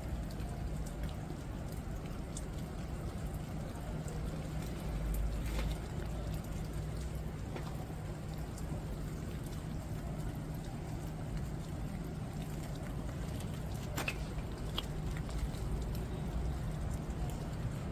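Steady rain falling on the leaves of a shrub, with a few sharper taps of drops landing close by and a steady low hum underneath.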